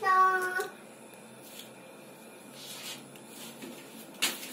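A young child's voice holds a short drawn-out note at the start, then the faint steady hum of a lift car; near the end a sharp knock sounds.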